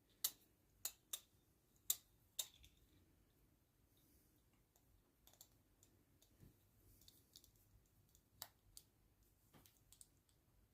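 Click pen's push-button mechanism clicking: five sharp clicks in the first two and a half seconds, then fainter, scattered small clicks and ticks as the pen is handled.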